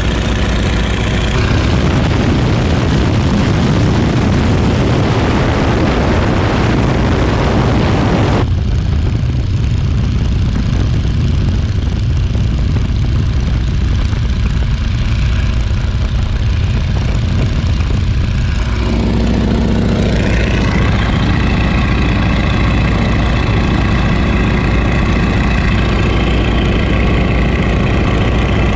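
Boeing Stearman biplane's radial engine and propeller running steadily in cruise flight, heard from the open cockpit together with the rush of wind. The sound changes abruptly three times: about a second in, about a third of the way through and about two-thirds through.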